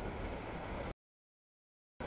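Freight train cars rolling past at a grade crossing, a low, steady rolling noise that cuts out abruptly about a second in, leaving dead silence: the audio feed is dropping out.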